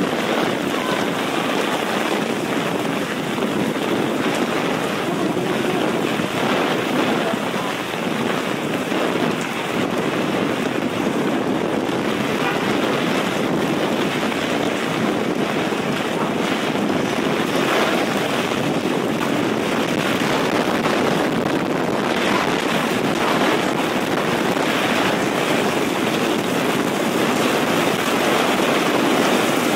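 Heavy rain pouring steadily onto a city street and pavement, a dense, even rush of water noise.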